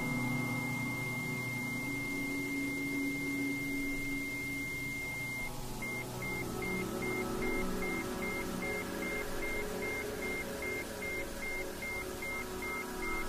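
Synthesized healing-frequency meditation drone: a sustained ambient pad of held low tones under a single high sine tone. About halfway through, the high tone changes from steady to beeping on and off a little over twice a second.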